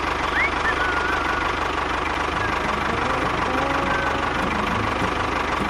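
A motor running steadily with a fast, even chug. A few short high chirps sound over it near the start and again about four seconds in.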